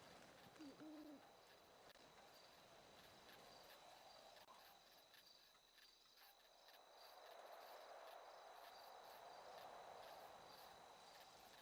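Near silence: faint hiss with a thin, steady high whine, from a microphone that was not recording properly.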